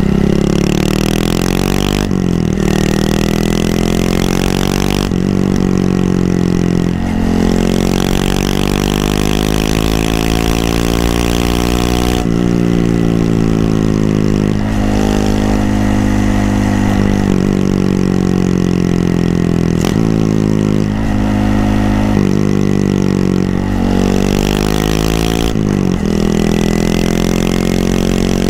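Honda Monkey 125's single-cylinder four-stroke engine running under way. The revs climb and fall, with several sudden breaks where it changes gear.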